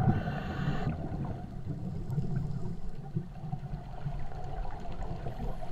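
Muffled underwater sound around a hookah diver: a steady low rumble with gurgling water, and a brief hiss that cuts off about a second in.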